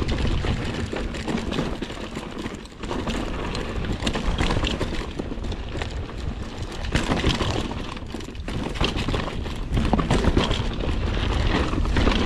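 Mountain bike riding fast down a rocky dirt trail: tyres crunching over dirt and loose stones, with a constant stream of clicks and knocks as the bike rattles over the bumps.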